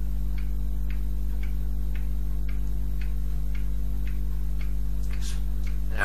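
Faint, evenly spaced ticks about twice a second over a steady low hum.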